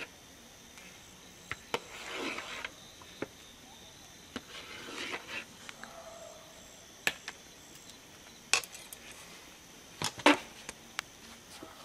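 Hands and utensils at work preparing food: scattered sharp clicks and knocks, the loudest a double knock near the end, and a few short rubbing or scraping passes. A faint steady high insect chirr runs underneath.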